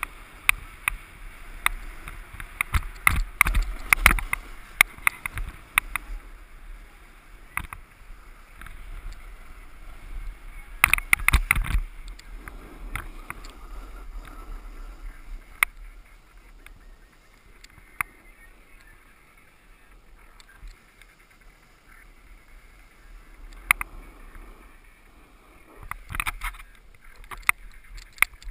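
Snowboard sliding down groomed, firm snow, its base and edges scraping and chattering over the corduroy with many sharp clicks. Louder clusters of scraping come a few seconds in, again around eleven seconds, and near the end, with a quieter glide in between.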